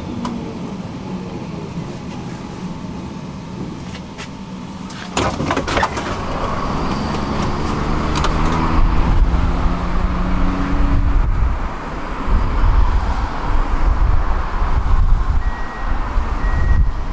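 Electric tram running, its traction motor whine gliding down in pitch as it slows. About five seconds in there is a cluster of clicks, then a louder low rumble with stepped motor tones, and a short high beep repeats near the end.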